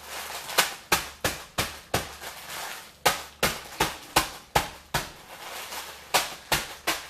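A fist pounding a zip-top plastic bag of crackers on a kitchen counter, crushing them into crumbs: a run of sharp knocks, about three a second, with a brief pause about five seconds in.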